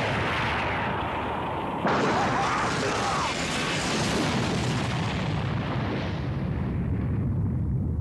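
Animated energy-blast explosion sound effect: a long blast that surges again about two seconds in and then slowly dies away.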